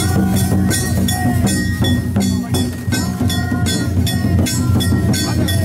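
Danjiri festival music: drums and struck metal bells beating fast and evenly, about three strikes a second, over a steady low rumble.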